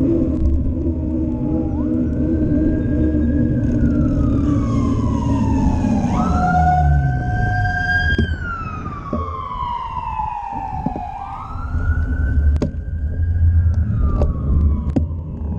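Emergency vehicle siren wailing, each cycle rising quickly, holding, then sliding slowly down, about every four to five seconds. Underneath is a steady low rumble of wind and road noise, with a few sharp clicks near the end.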